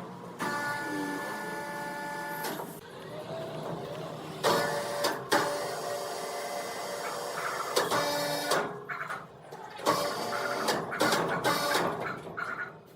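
Sawmill machinery running, with a steady mechanical whine of several tones and a few sharp knocks. The sound changes abruptly several times.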